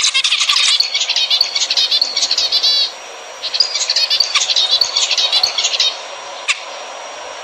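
Zebra finches singing and calling in fast runs of buzzy, chattering notes: one long phrase, a short pause about three seconds in, then a second phrase, and a single sharp click near the end. This is a zebra finch song recording played to caged finches to get them to breed.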